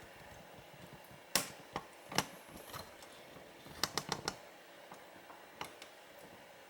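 Irregular light clicks and taps from handling the camera as it is re-aimed at the bird feeder, with a quick run of clicks about four seconds in.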